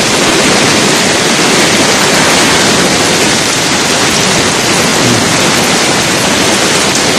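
Heavy typhoon rain pouring onto a flooded street while floodwater rushes past: a loud, steady, even hiss with no breaks.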